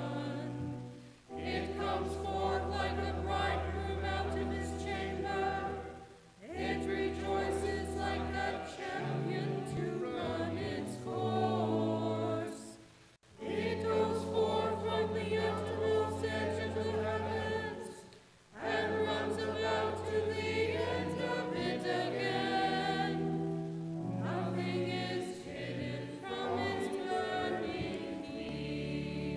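Church choir singing in phrases a few seconds long, each ending in a short pause, over low held notes.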